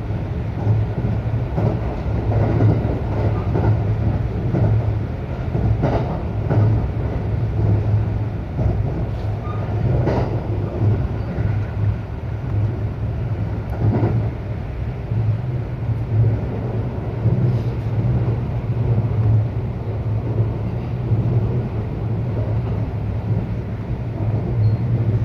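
Inside a local electric train's passenger car while it runs along the line: a steady low rumble and hum from the wheels and running gear, with a few faint knocks from the track.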